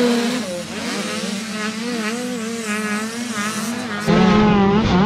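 Several small dirt bike engines revving and easing off as the bikes ride over jumps, their pitches rising and falling over one another. About four seconds in, the sound changes abruptly to a louder, closer engine with a low wind rumble.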